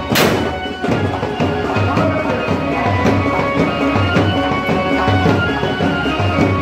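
Traditional drumming with a reedy wind instrument holding a droning tune, played live for a Muharram stick-fighting display. Just after the start there is a short burst of hiss as a confetti cannon is fired.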